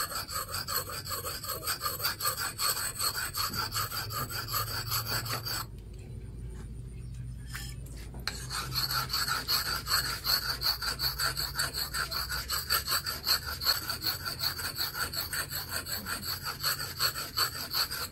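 Steel axe blade being honed on a whetstone: quick, even back-and-forth strokes of gritty scraping. The strokes break off for about two seconds around six seconds in, then pick up again.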